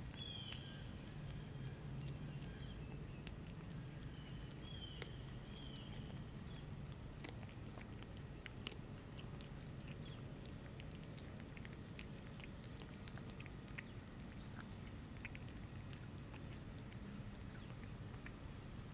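Domestic cat chewing a shrew: a steady run of small, irregular clicks and crunches as its teeth work through the carcass.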